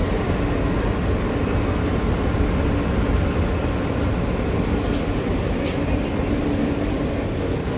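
Steady low hum and rush inside an R160 subway car standing at a station, with a faint steady tone.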